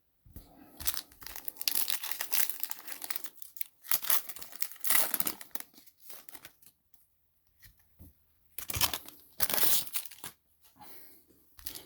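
Plastic foil wrappers of basketball trading card packs being torn open and crinkled in the hands, in two spells with a pause of a few seconds between them.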